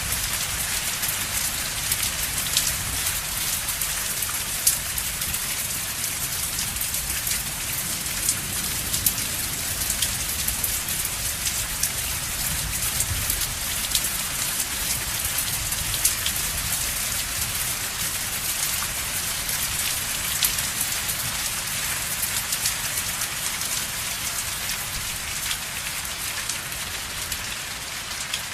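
Steady rain falling, with many individual drops ticking sharply on a surface over a constant hiss and a low rumble underneath.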